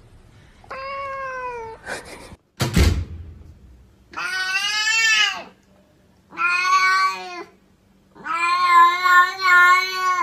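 A domestic cat meowing: four long, drawn-out meows, the last one the longest, with a single thump shortly before the second.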